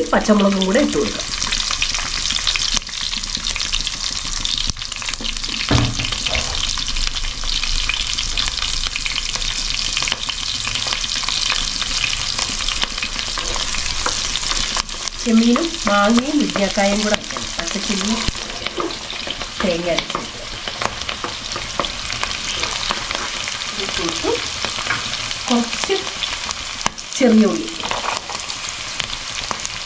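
Sliced green chillies and ginger sizzling steadily in hot oil in a clay pot, stirred with a wooden spatula. Near the end a handful of shallots drops into the oil.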